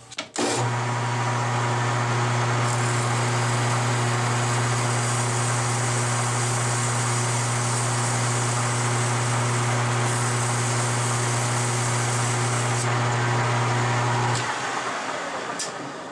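Metal lathe starting up and running steadily with a low motor hum while a strip of sandpaper is held against the spinning bearing adapter, adding a hiss through the middle. Near the end the motor is switched off: the hum cuts out and the chuck spins down.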